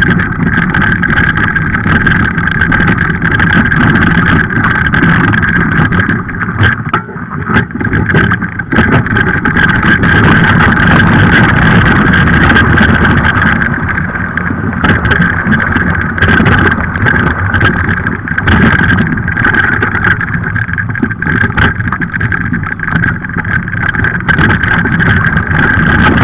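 A dog-pulled kick scooter rolling fast over a dirt and gravel riverside trail: a continuous rumble and rattle from the wheels on the rough ground, with a steady high whine running through it and wind buffeting the microphone.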